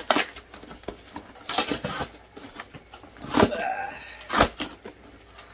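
Cardboard shipping box being ripped open: several rough tearing and crumpling bursts, the loudest about three and a half and four and a half seconds in.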